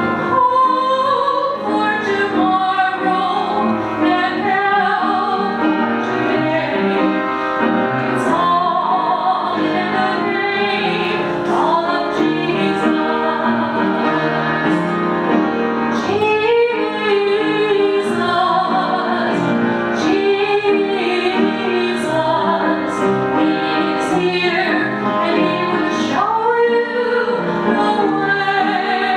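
A woman singing a solo with vibrato over instrumental accompaniment.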